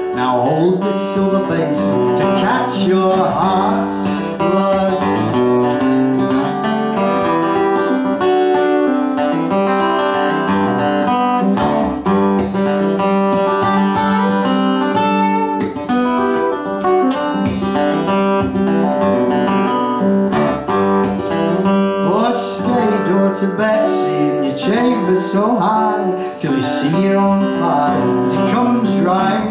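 Solo steel-string acoustic guitar playing an instrumental passage in a folk ballad, with melody notes ringing over a held low bass note.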